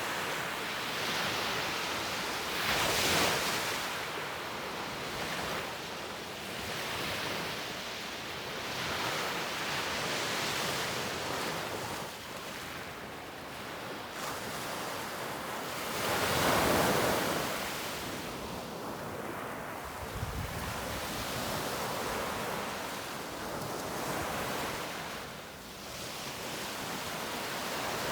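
Baltic Sea waves washing in slow surges that swell and fade, loudest about three and seventeen seconds in, with wind on the microphone.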